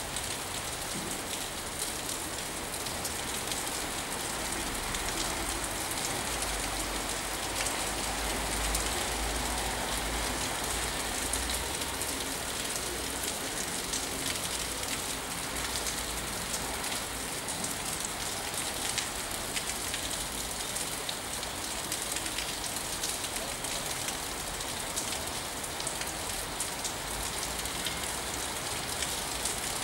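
Steady rain: an even hiss with many fine drop ticks, and a low rumble that swells and fades in the middle.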